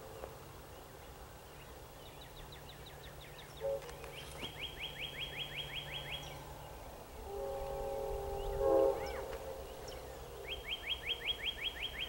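Approaching Amtrak passenger locomotive's air horn sounding, with a short blast a few seconds in and a longer blast that swells loudest near the end of it. A songbird's rapid trill of repeated high chirps comes twice, once before the long blast and once after it.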